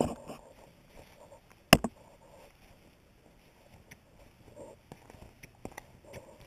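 Handling noise from a GoPro on a monopod: a softer knock at the start and one sharp, loud knock just under two seconds in, then light scattered taps and clicks.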